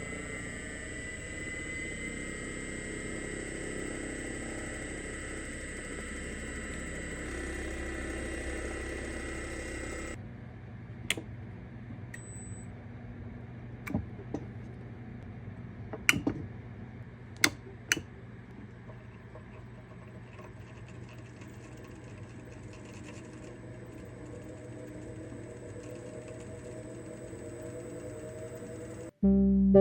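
Restored Delta Rockwell 1460 lathe with its three-phase motor running steadily, with a high whine. About a third of the way in the sound changes to a lower, quieter hum with several sharp knocks.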